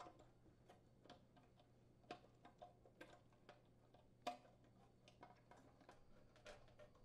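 Faint, irregular small clicks and taps of a refrigerator's crushed-ice solenoid assembly being handled, seated in its sheet-metal housing and having its mounting screws started, with one slightly louder click about four seconds in.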